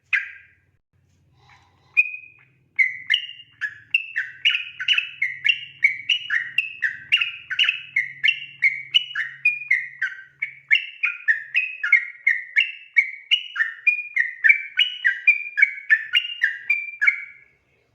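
Yellow-vented bulbul (trucukan) singing its long rolling 'ropel' song. After a short call and one clear note, it runs into an unbroken string of short whistled notes at about three a second, alternating high and low, which stops shortly before the end.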